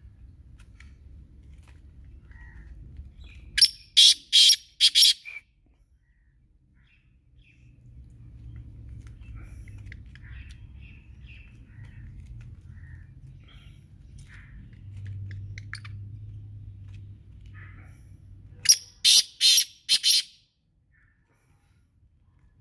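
Black francolin calling twice, about fifteen seconds apart: each call a quick run of four or five loud, harsh, grating notes lasting about a second and a half.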